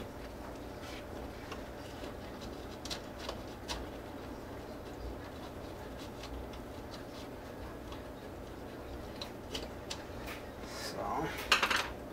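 Faint, scattered small clicks and scrapes of a hand tool working the screw terminals of a plastic thermostat wall plate, with a louder cluster of clatter and rustling near the end.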